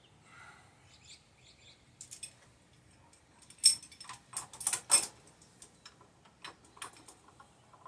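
Light metallic clicks and clinks, a few sharper ones near the middle, from a three-jaw gear puller being handled and fitted onto a garden tractor's steering wheel.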